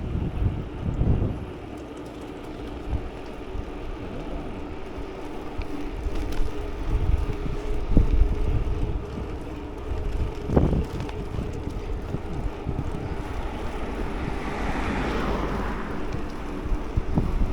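Wind buffeting the microphone of a moving scooter, with the scooter's engine running steadily underneath. There are a few gusty thumps, and a hissing rush swells and fades a little before the end.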